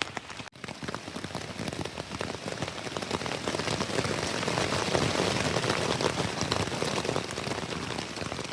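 Heavy rain pattering down, a dense steady patter of drops that thickens after a few seconds, with a brief dropout about half a second in.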